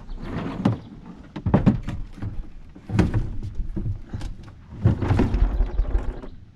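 Plastic top deck of a Sea-Doo Spark jet ski being lowered and worked into place on the hull: irregular knocks, thunks and scraping in four bursts, the heaviest about five seconds in.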